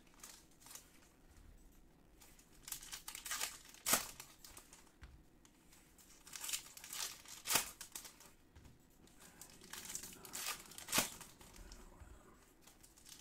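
Foil wrappers of Prizm soccer trading-card packs crinkling and tearing open as the packs are handled and opened, with cards being shuffled. A few sharp snaps stand out, about four, seven and a half, and eleven seconds in.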